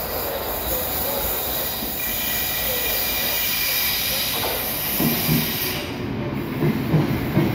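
Southeastern Class 465 Networker electric multiple unit arriving at the platform: a steady hiss with a faint high squeal from about 2 s in, then wheels clattering over the rail joints in a rhythm as the carriages run close past from about 5 s.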